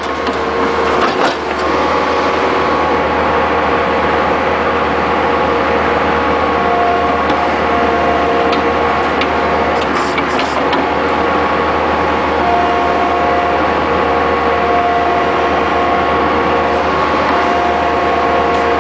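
Bobcat skid-steer loader's diesel engine running steadily while its 709 backhoe attachment digs, with a high whine that comes and goes several times. A few sharp clatters about ten seconds in.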